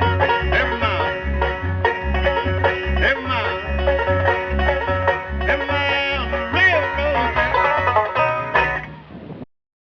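Bluegrass band playing, with banjo picking over a steady bass beat about twice a second; the music cuts off suddenly near the end.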